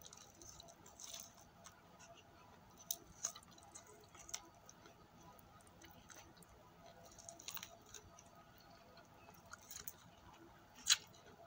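Crispy KFC fried chicken being torn apart by hand and chewed: faint crackles of the coating and scattered small clicks, with a sharper crackle near the end.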